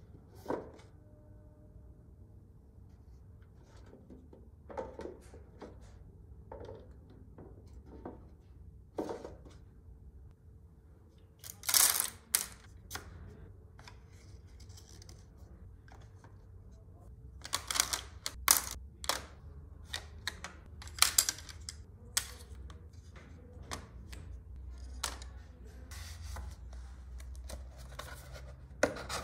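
Handling noise from small hand work: scattered light clicks and taps, with a short, louder noisy stroke about twelve seconds in and a cluster of them between about 17 and 22 seconds, over a low steady hum.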